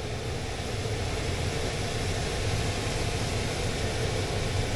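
Air handler blower fan running steadily, a rush of air over a low hum, having just started after a blown control fuse was replaced: the fuse has held, so there is no short to ground.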